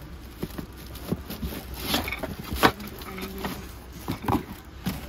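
Scattered light clicks and knocks of aluminium cooking pots being handled, the sharpest about two and a half seconds in, over a faint background hum and murmur of voices.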